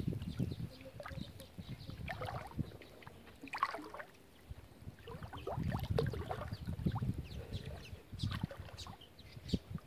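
Water sloshing and splashing as people swim and wade through murky floodwater, with irregular splashes and low sloshing swells.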